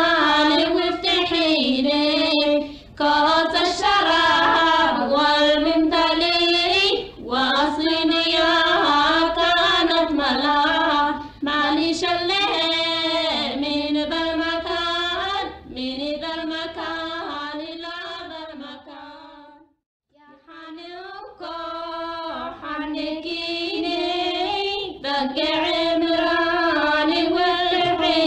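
A high female voice singing a melody solo, in long phrases. The voice fades out and stops briefly about two-thirds of the way through, then takes up the song again.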